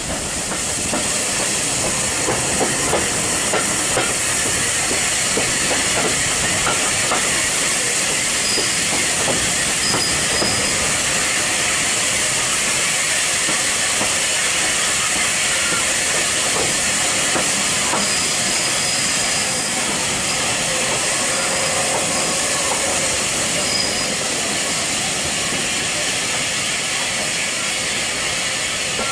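Train hauled by the Bulleid West Country class steam locomotive 34092 City of Wells running, heard from an open carriage window: a steady rushing hiss of wind, steam and rolling wheels. Faint knocks come in the first few seconds and faint high squeals now and then.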